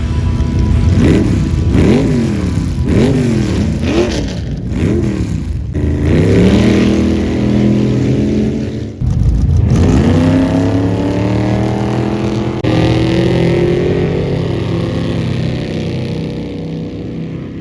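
Off-road race car engines revving. The throttle is blipped about once a second for the first five or six seconds, then the engines rise more slowly in pitch, with a couple of abrupt cuts between shots.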